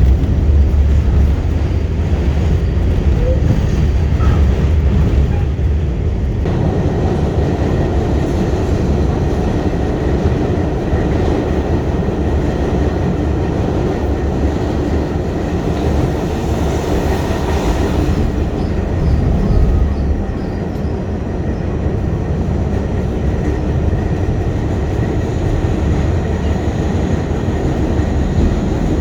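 New York City subway train running with a steady low rumble. About six seconds in, the noise grows fuller.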